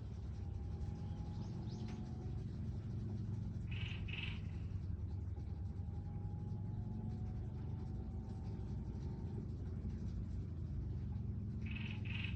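Steady low outdoor background rumble, with a short chirping call of a few quick pulses about four seconds in and another near the end.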